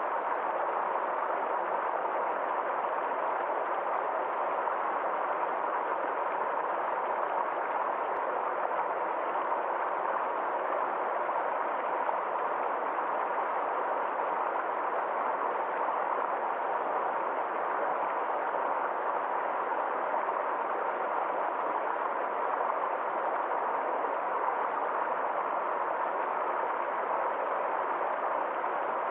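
Small forest stream flowing over rocks, a steady, unbroken rush of water.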